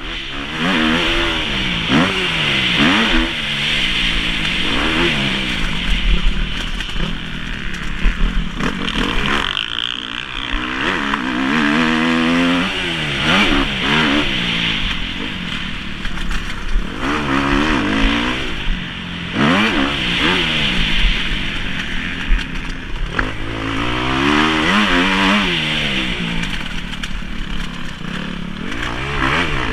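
Kawasaki KX250F four-stroke single-cylinder motocross engine heard from onboard the bike, revving up and dropping back over and over as it accelerates, shifts and rolls off around the track.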